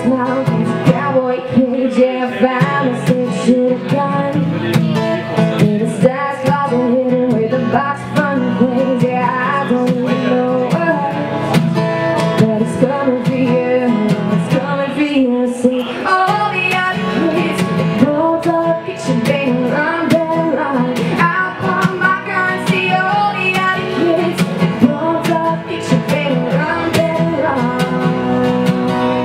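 A woman singing with a strummed steel-string acoustic guitar, a live solo acoustic performance.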